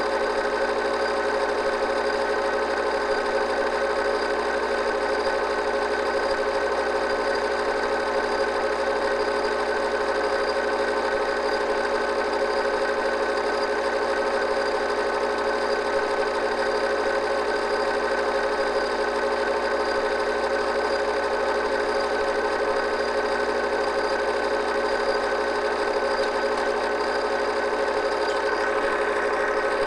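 8mm film projector running: a steady mechanical whir with constant tones, unchanging throughout.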